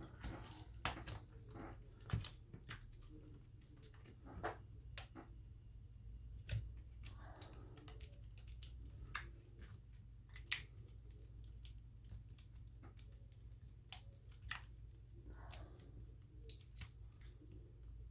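Light, scattered clicks and taps of small objects being handled, with a couple of soft rustles, over a low steady hum.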